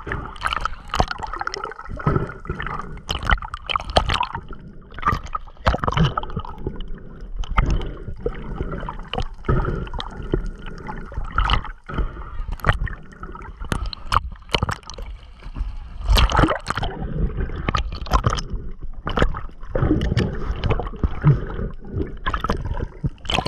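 Water sloshing and gurgling around a submerged microphone, with irregular splashes and knocks from swimming near the surface.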